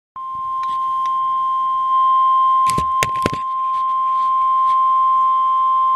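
NOAA Weather Radio warning alarm tone: one loud, steady tone of about 1050 Hz received on a weather radio, sounding ahead of a special marine warning broadcast. A few short bursts of radio static crackle over it about halfway through.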